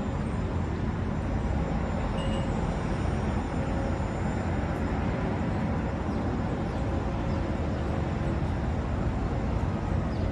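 Steady city ambience: a low, even rumble of street traffic with no single event standing out.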